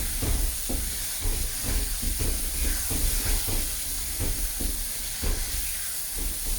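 Blended gulai spice paste sizzling in hot oil in a pan, with repeated short stirring strokes through the hiss. It is being sautéed until the oil separates from the paste and it turns fragrant.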